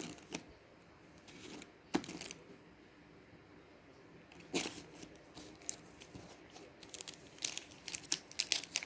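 Wrapper of a mini Pokémon trading-card booster pack crinkling and tearing open, in scattered crackles that come thick and fast near the end.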